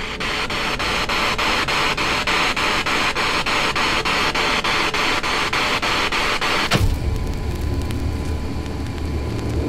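Spirit box scanning radio static: a steady hiss broken by sweep ticks about five times a second. About seven seconds in, the hiss drops away and a low hum with a faint steady tone takes over.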